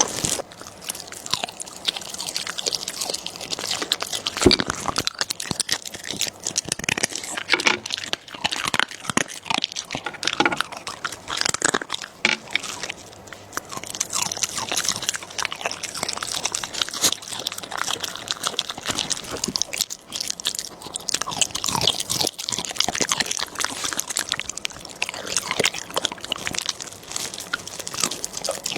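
A dog chewing and crunching food close up, with a dense, irregular run of crunchy bites throughout.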